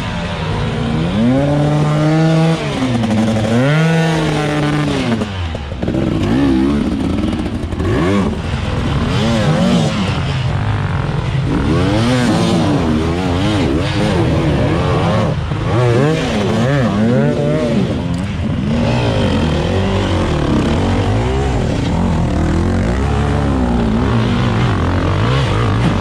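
Several enduro dirt bike engines revving up and down in repeated bursts, as bikes are worked up a steep, rocky climb under load. One engine swells and drops twice in the first few seconds, then several engines overlap, rising and falling.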